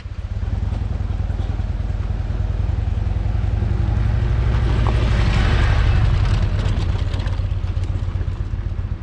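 Large touring motorcycle riding past on a dirt road, its engine running with a low, steady pulse. It grows louder as it comes closest, about five to six seconds in, then fades as it pulls away, with a hiss from the tyres on gravel as it passes.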